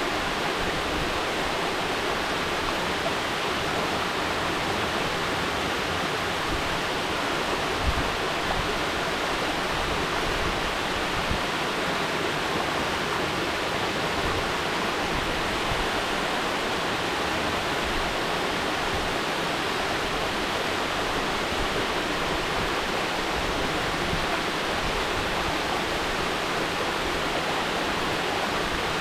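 Mountain waterfall: water falling and rushing in a steady, even roar of noise.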